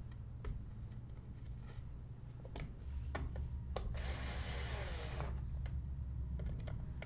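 A few light clicks of screws and plastic being handled, then a cordless power screwdriver runs for about a second and a half, driving in a mounting screw for the upper GPS module, with a high motor whine whose pitch sags as the screw seats.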